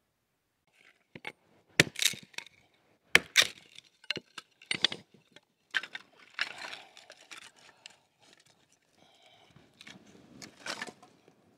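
Pieces of wood knocking and cracking as they are handled and set on a wooden stump block. About a dozen irregular sharp knocks come in the first six seconds, then softer scraping and rustling, with one last knock near the end.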